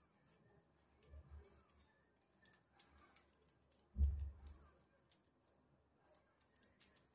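Faint handling sounds of hands pressing and shaping a soft potato-and-paneer dough ball, with scattered light clicks and a dull thump about four seconds in.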